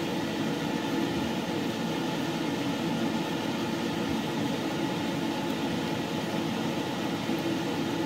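A steady background hum with a hiss over it, unchanging throughout: the even drone of a running appliance such as an air conditioner or fan in the room.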